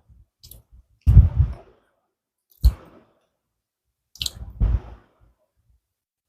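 Slate pencil being bitten and chewed close to the microphone: three or four short crunches with silence between, each opening with a sharp snap.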